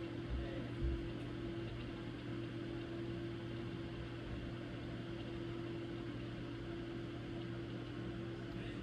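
A steady mechanical hum with a constant low tone, like a small motor or fan running, with two short low thumps in the first second.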